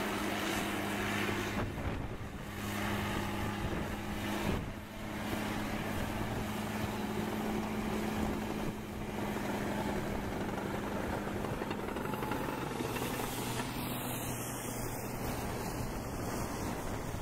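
Caterpillar D6R crawler bulldozer's diesel engine running steadily under load as it pushes through deep snow, a low drone with noise over it.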